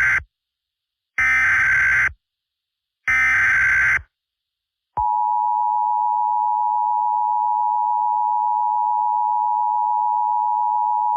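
Emergency Alert System alert signal. It begins with the SAME header data bursts: the end of one burst, then two more short harsh bursts of data tones about a second apart. About a second after the last burst comes the steady two-tone EAS attention signal, which holds unbroken.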